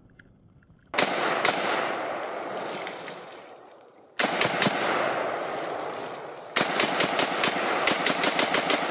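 Zastava M70 AK-pattern rifle in 7.62x39 firing: two shots about a second in, a few more starting around four seconds, then a fast string of shots near the end, each shot trailing a long echo.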